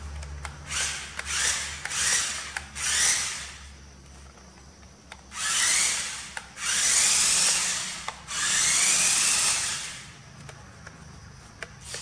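Small electric motor and gearbox of a toy RC rock-crawler car whirring in bursts as it is driven, the pitch rising as it speeds up each time. Three short bursts come first, then three longer runs of about a second or more.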